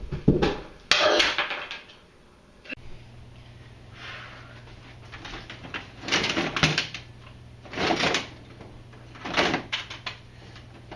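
Objects being handled and set down in a small room: a few short bursts of clunking and rustling, with a steady low hum coming on about three seconds in.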